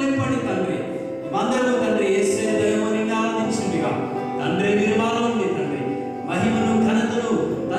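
A worship song sung in phrases over steadily held instrumental notes.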